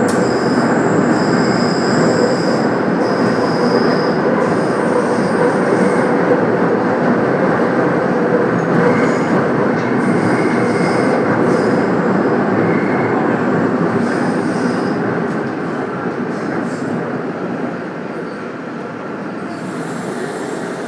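A passenger train running, heard from inside the carriage: a steady rumble with high, thin wheel squeals coming and going. The noise eases a little in the last few seconds.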